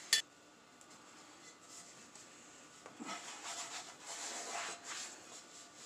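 Cloth towel rubbing over a cast iron skillet as it is dried, a soft swishing rub that gets louder about halfway through. A brief click right at the start.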